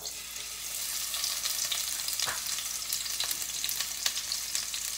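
Sliced onion going into hot mustard and sunflower oil with cumin seeds, sizzling as it starts to fry. The sizzle starts suddenly, builds over the first second, then holds steady, with a few sharp pops.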